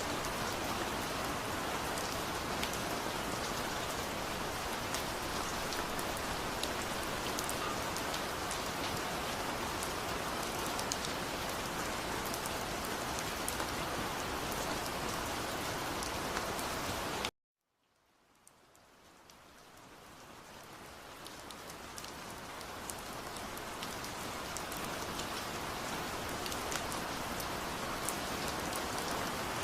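Waterfall water rushing and splashing as a steady hiss. About 17 seconds in it cuts out abruptly to silence, then fades back in over several seconds to its full level.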